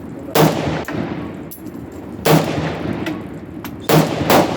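Four rifle shots at a shooting range, each with a lingering echo. The first two are about two seconds apart, and the last two come near the end, less than half a second apart.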